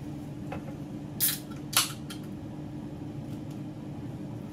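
Two brief, sharp noises about half a second apart, over a steady low hum.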